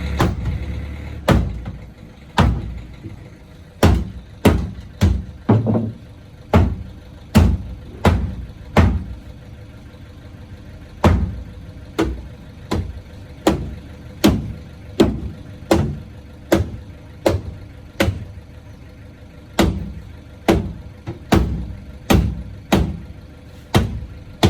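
Hammer blows on the metal of a car's boot during body repair, struck over and over at about one or two a second, with a short pause about halfway through.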